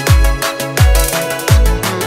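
Background electronic music with a steady beat: a deep kick drum that drops in pitch about every three quarters of a second, under bright cymbal hits.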